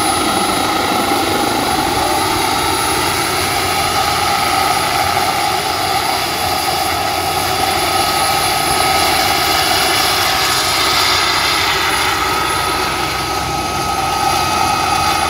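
Radio-controlled scale model of a Super Cobra helicopter hovering low, its engine whine and rotor noise running steadily at a constant pitch.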